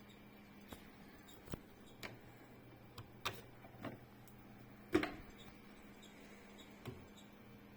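Irregular clicks and light knocks from a laptop being handled, about eight over several seconds, the loudest a thump about five seconds in, over a faint steady hum.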